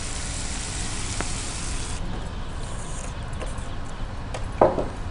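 Tomato-onion masala sizzling in a nonstick pan as water is poured in from a steel jug. The steady hiss cuts off abruptly about two seconds in, followed by a few light clicks of the spoon stirring.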